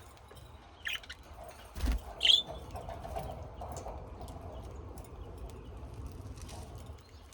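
A few short, high bird chirps, the loudest about two seconds in, with a low thump just before it.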